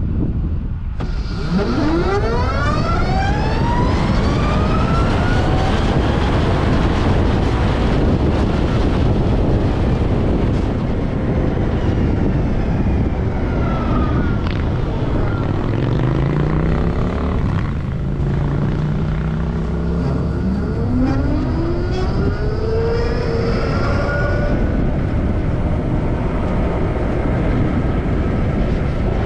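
Zero SR/S electric motorcycle accelerating hard: its motor whine sweeps up in pitch from about a second and a half in, under a heavy rush of wind, and rises again later in the stretch.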